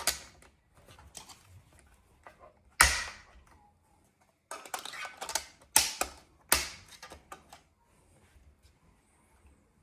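Sharp clicks and knocks of full-motion TV wall-mount hardware being handled and fitted. The loudest knock comes about three seconds in, followed a couple of seconds later by a quick run of clicks.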